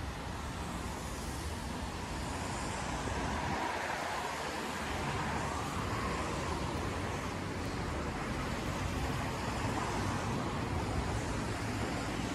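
City street traffic on a rain-wet road: a steady hiss of car tyres and engines, swelling once in the middle as traffic passes.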